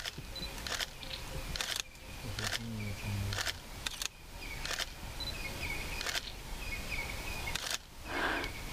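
DSLR camera shutters firing again and again, single clicks and short quick bursts at uneven intervals.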